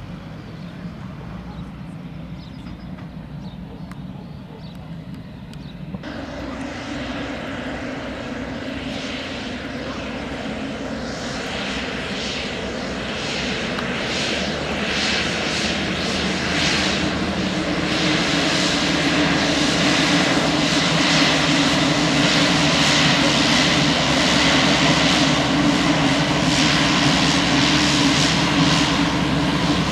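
Pilatus PC-12's single turboprop engine and propeller running. About six seconds in the sound suddenly becomes fuller, then grows steadily louder for about ten seconds and holds loud and steady, with a steady propeller hum.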